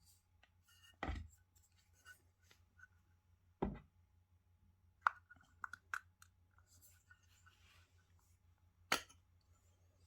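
Items being handled during an unboxing: two dull thuds, a quick run of sharp clicks, then one more sharp knock, over a faint steady hum.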